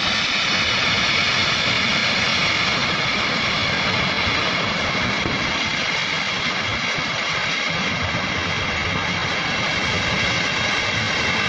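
Steady, loud roar of the Swat River in flood, a dense rushing noise with no pauses.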